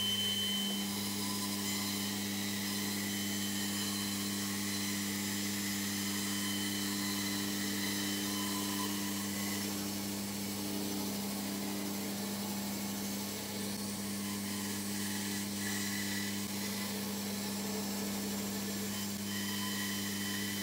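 Small narrow-bladed power saw running steadily with a constant motor hum as its blade cuts through a strip of wood.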